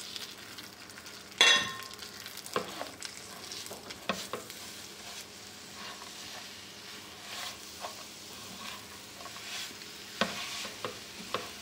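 Spatula stirring and scraping coarsely crushed roasted nuts and mashed dates around a frying pan, with a light sizzle from the hot ghee under it. A sharp knock comes about one and a half seconds in, with smaller scrapes and taps scattered through.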